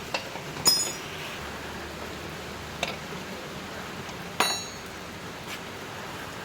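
About five sharp metallic clinks of steel parts and tools being handled while an electric scooter's rear wheel axle hardware is taken apart; the clinks about a second in and just past four seconds are the loudest and ring briefly.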